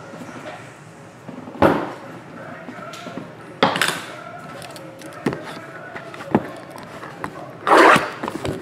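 Cardboard trading-card boxes being handled and set down on a padded table: a few separate knocks and thuds, then a longer rustling scrape near the end.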